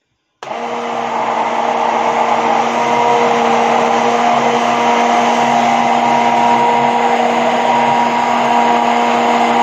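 A 1000 W Moulinex stick blender switches on suddenly about half a second in and runs steadily with an even hum in a plastic jug, blending lemon juice into homemade alioli.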